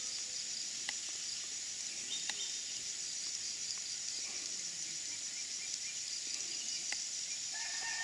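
Rainforest ambience at dusk: a steady high-pitched chorus of insects, broken by a few sharp clicks. A long, drawn-out call begins near the end.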